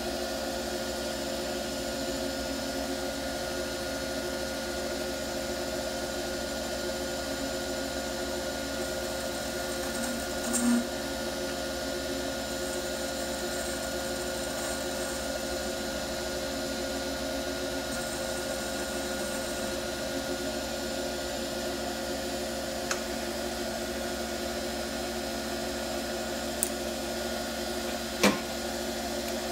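Ring-making lathe running steadily with a constant multi-tone hum as it machines the side of a sterling silver ring blank down to width. A few short sharp clicks stand out, the loudest near the end.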